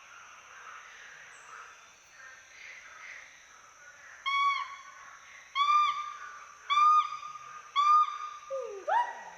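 Western hoolock gibbons calling: four short loud hoots about a second apart, then whoops that sweep upward in pitch near the end. This is their social and territorial song. Under the calls runs a steady high insect hum.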